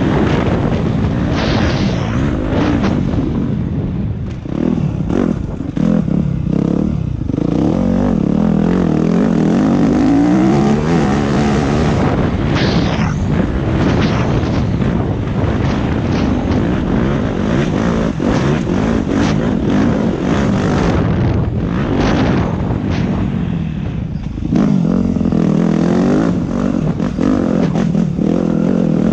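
Yamaha dirt bike engine under hard riding, revs repeatedly rising and falling as the rider accelerates and backs off over rough trail.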